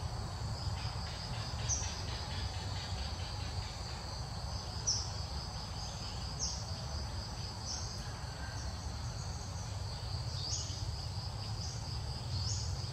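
Steady high-pitched insect chorus, with about seven short, high chirps scattered over it and a steady low rumble underneath.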